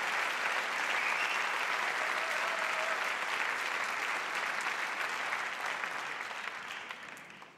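Theatre audience applauding steadily, fading out over the last couple of seconds.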